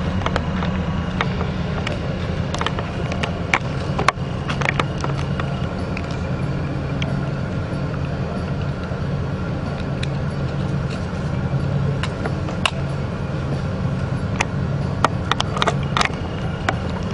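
A vehicle engine idling steadily, with scattered clicks and knocks over it.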